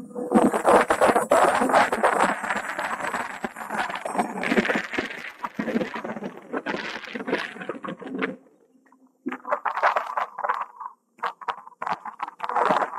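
Irregular rattling and clicking while an e-bike rolls along a paved path. It stops for about a second roughly eight seconds in, then returns in shorter patches.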